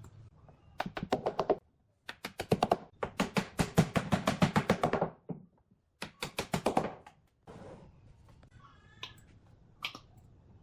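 Rapid sharp tapping, about ten strikes a second, in four runs over the first seven seconds, the longest lasting about two seconds; fainter scattered sounds follow.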